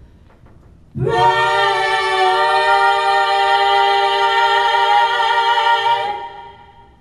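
Female voices singing one long held note in harmony, unaccompanied; it swells in about a second in, holds steady and fades out near the end.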